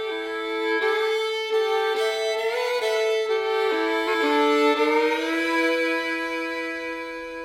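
Background music: a fiddle plays a slow melody of held, sliding notes, several sounding at once, with no drums or bass.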